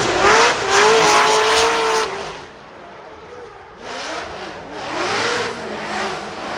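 Drift cars' engines revving hard, the pitch swooping up and down as the drivers work the throttle, over tire noise. It is loudest in the first two seconds, fades, then another car's revving swells up about four seconds in.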